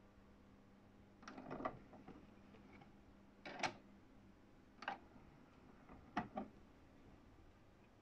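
Sony CDP-470 CD player's disc tray being opened, loaded with a CD and closed: four short clusters of soft mechanical clicks and clunks, the loudest about three and a half seconds in.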